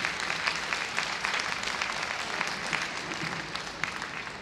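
Small audience applauding, many separate handclaps, slowly fading toward the end.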